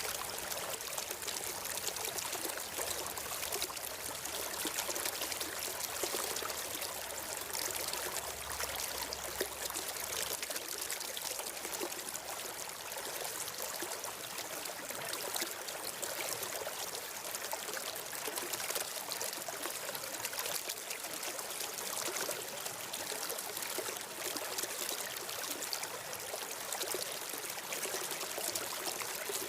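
Steady running water of a flowing stream, an even rushing babble with no breaks.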